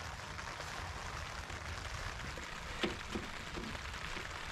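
Steady rain falling on a tarp overhead, an even hiss, with a faint click about three seconds in.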